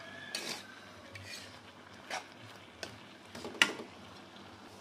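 Stainless steel spatula scraping and clinking against a wok as greens and bean sprouts are tossed in a stir-fry. There are a handful of separate strokes, the loudest about three and a half seconds in.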